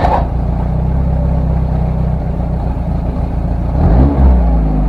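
Car engine idling steadily, revved once about four seconds in, its pitch rising and then falling back to idle.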